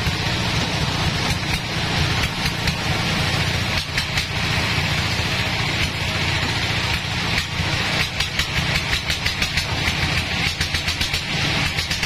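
Band sawmill running: a steady machine hum with a strong high hiss and scattered clicks, turning into a quick regular pulsing in the last few seconds.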